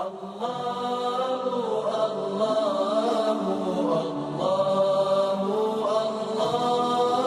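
Wordless a cappella vocal chant: layered voices holding long notes that slide slowly from pitch to pitch. It starts suddenly out of silence.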